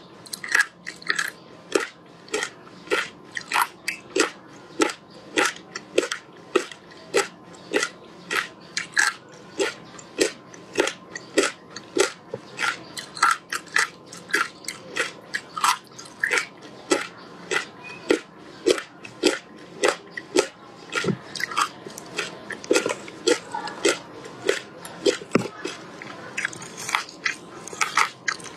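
Close-up crunching of frozen passion fruit ice being chewed, sharp crisp crunches at about two to three a second, with a fresh bite into the ice slab near the end.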